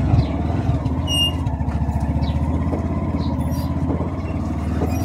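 Motor vehicle engine running steadily, with a brief high chirp about a second in.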